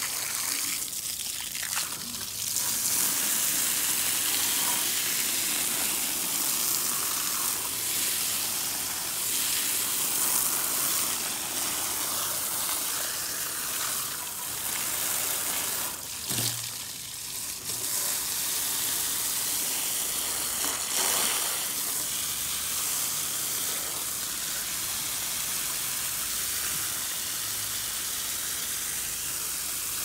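Water spraying from a garden hose nozzle onto an air-conditioner evaporator coil, rinsing foaming coil cleaner out of the fins: a steady hiss and splatter, with a short dip just past halfway.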